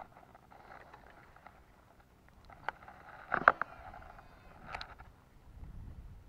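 Handling of a freshly landed snakehead on the ground: rustling with a few sharp knocks, the loudest about three and a half seconds in.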